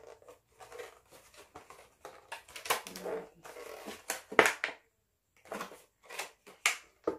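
Plastic packaging being handled and unwrapped: irregular crinkling and rustling with a few sharper snaps, and a brief pause near the middle.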